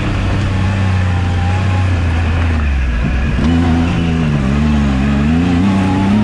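Turbocharged Yamaha YXZ1000R side-by-side's three-cylinder engine heard from inside the cockpit, pulling under way. It runs at a steady pitch at first, then about halfway through the revs climb and rise and fall several times as the throttle is worked.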